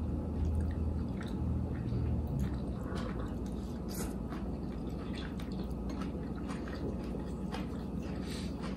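Close-miked eating sounds: chewing with scattered small wet mouth clicks, over a steady low hum.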